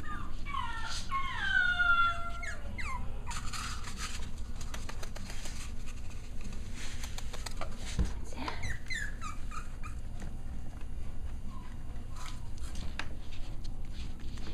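Six-week-old Cavalier King Charles Spaniel puppy whining, a quick run of high calls that slide down in pitch during the first three seconds and a few fainter ones about nine seconds in, among scattered clicks and rustles of paws and handling.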